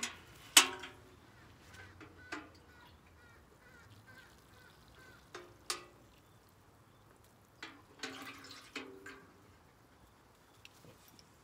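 Water trickling from a metal watering can onto garden soil, with a few short, loud bird calls over it, the loudest about half a second in.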